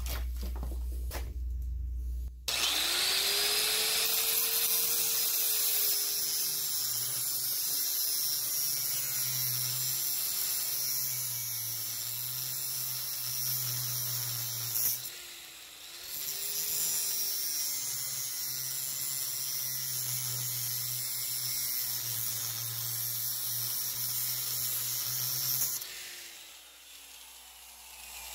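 Electric drill boring holes in a metal part: two runs of drilling, the first of about twelve seconds and the second of about ten, with a short stop between them. The motor's hum sags and recovers as the bit bites.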